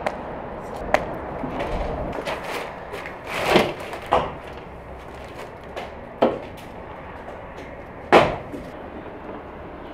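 Heavy chopping blows landing on wood, about six at irregular intervals, the loudest about three and a half and eight seconds in, over a steady background hiss.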